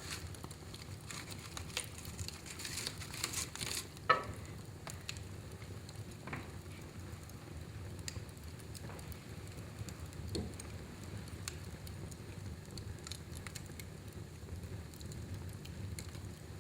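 Fire burning in a fireplace: a steady low rumble of the flames with scattered crackles. A flurry of crackling and hissing comes in the first few seconds, and one sharp loud pop about four seconds in.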